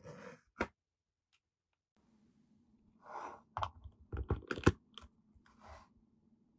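Hard plastic clicks and scrapes as a PVC figure is handled and its foot pegged onto its black plastic display base on a tabletop: a short slide of the base and a click at the start, then a quick run of sharp taps, the loudest as the foot snaps onto the peg about three quarters of the way through.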